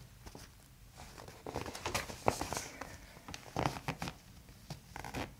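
Faint rustling and scattered soft clicks as hands move on a man's neck against the paper headrest cover of a chiropractic table, picked up close by a condenser microphone.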